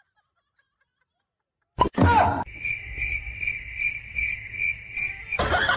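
Nearly two seconds of silence, then a yellow rubber chicken toy squeezed by a cat's paw: a sudden squawk, followed by a long high squeal that pulses about four times a second. Near the end it cuts off and a busier, louder mix of sounds begins.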